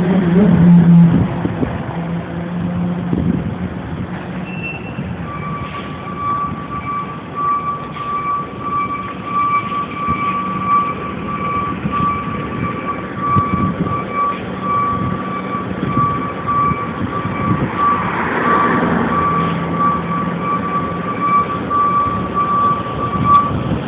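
Fire truck's diesel engine running with a low steady hum. From about five seconds in a high-pitched electronic beeping alarm sounds steadily until near the end.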